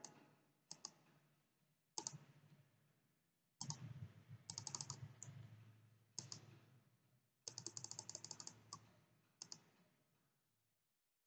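Faint computer mouse clicks and keyboard key taps, mostly single clicks a second or two apart, with a quick run of clicks about four and a half seconds in and a longer rapid run a little past the middle.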